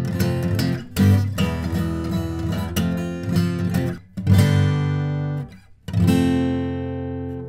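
Acoustic guitar being strummed and picked, with two brief breaks about four and five and a half seconds in, each followed by a strong strum that rings and fades. Captured close on a USB condenser microphone with no effects applied.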